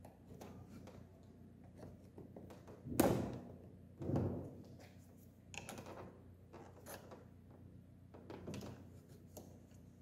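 Handling clicks and knocks from a Fiat Punto headlight's plastic housing as its wire spring clip is unhooked and the rear cover taken off, with two louder knocks about three and four seconds in and lighter clicks after.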